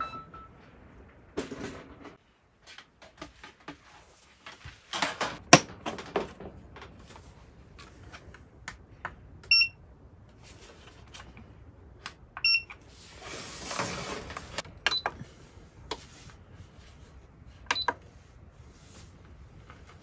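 Camping gear being handled on a metal camp table, with scattered knocks, clicks and a stretch of rustling. An electronic appliance beeps twice in the middle, a short beep each time, as a portable power station and an electric heater are switched on.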